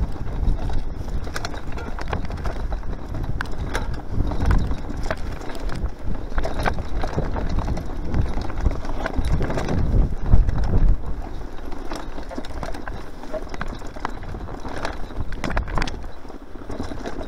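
Mountain bike rattling over bumpy grass singletrack at speed: a constant low rumble from the tyres and air rushing past, broken by frequent irregular knocks and clatters from the bike, with a heavier jolt about ten seconds in.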